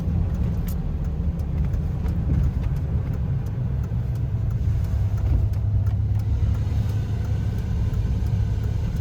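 Cummins diesel truck driving at a steady pace while towing a trailer: a low, steady drone of engine and road noise.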